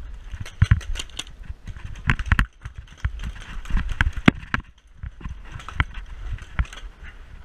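Footsteps of a player running on gravel, with gear knocking, mixed with sharp irregular pops of paintball markers firing, some in quick clusters, over a low rumble of handling and wind on the microphone.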